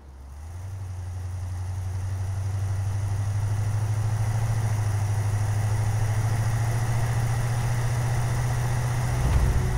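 Four-wheel-drive tour vehicle's engine running steadily as it drives along a road, with a low hum under road and wind noise; it fades in over the first couple of seconds.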